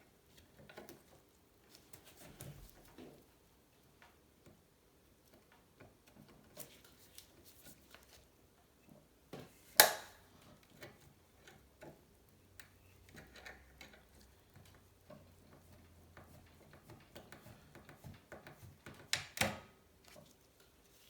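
Sparse light clicks and taps from handling a steel bicycle frame and hand tools. One sharp click comes about ten seconds in, and a quick cluster of knocks near the end.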